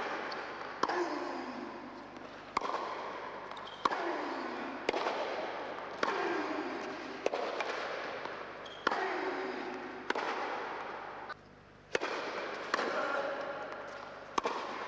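A tennis ball being hit back and forth with rackets in rallies: a sharp crack about every second or so, each followed by a long ringing echo of the indoor hall.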